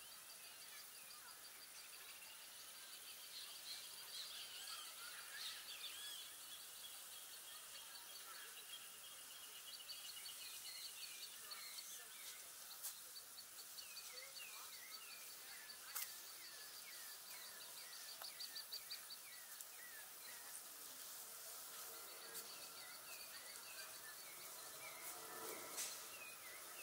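Several birds singing over a faint park background hiss: rapid high trills and runs of short falling chirps, with a couple of sharp ticks, one about halfway through and one near the end.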